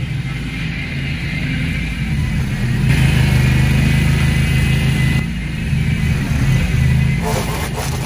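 Small gas string-trimmer engine running steadily; about seven seconds in, the trimmer starts cutting into tall weeds, adding choppy strikes of the line against the stems.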